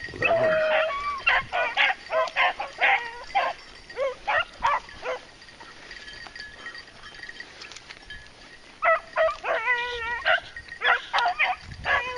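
Beagles baying as they run a rabbit's scent trail: a string of short cries, a lull of a few seconds midway, then more.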